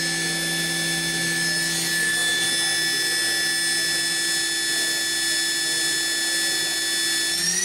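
KIWA KNH-426X horizontal machining center's spindle running free at about 10,000 RPM, a steady high whine made of several steady tones. Near the end the whine rises in pitch as the spindle speeds up toward 12,000 RPM.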